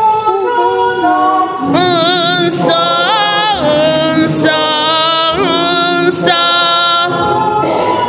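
A woman's voice singing a church hymn a cappella close to the microphone, long held notes with vibrato, with other voices of the congregation singing along.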